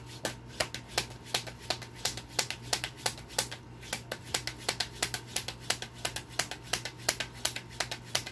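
Tarot cards being shuffled by hand: a continuous, irregular run of sharp card clicks, several a second.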